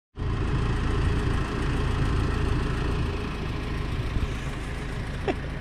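Ford Ranger pickup's engine idling steadily, a low constant running sound.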